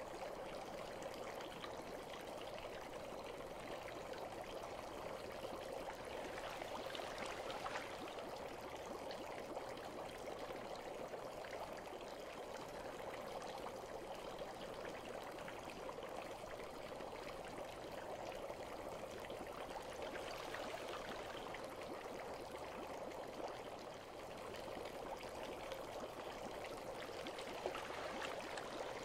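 Water running and trickling steadily into a bath, a continuous even flow.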